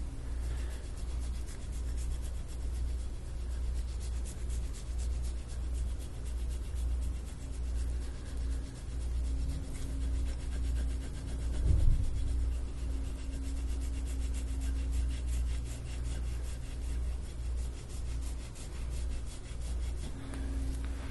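A metal soft-tissue scraping tool (instrument-assisted soft tissue work) dragged in repeated strokes over the skin of the neck and upper shoulder, a rasping rub. There is one louder thump about halfway through.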